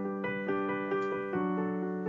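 Background music: a piano playing an instrumental passage of a pop ballad, notes struck about four a second.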